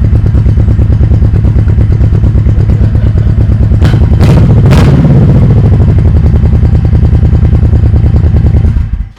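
Honda Shadow V-twin motorcycle engine idling with a steady pulsing exhaust note, recorded close to the exhaust pipes. It revs briefly about four seconds in, then is switched off near the end and stops abruptly.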